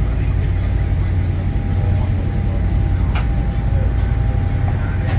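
Passenger ferry's engines running with a steady low drone and a faint steady whine above it, with one sharp click about three seconds in.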